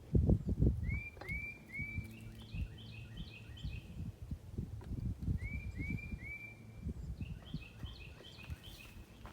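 A songbird singing three phrases, each a few upslurred whistles followed by a quick run of short, higher chirps. Low thumps and rustles are heard too, loudest in the first second.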